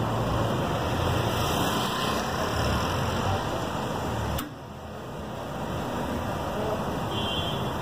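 Hydraulic alligator shear running, its power unit giving a steady mechanical noise with a low hum as the upper jaw moves down. About halfway through there is a sharp click, after which the sound drops and then slowly builds again.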